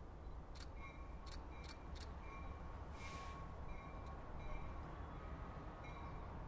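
Faint low rumble of a CSX diesel locomotive approaching slowly, with a bell ringing steadily at about one ding every 0.7 seconds. A few sharp clicks come in the first two seconds, and a short hiss comes about halfway through.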